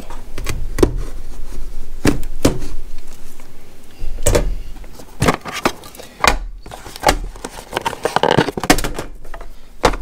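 A cardboard retail box being opened and its plastic product tray pulled out and handled: a string of irregular clicks, knocks and scrapes.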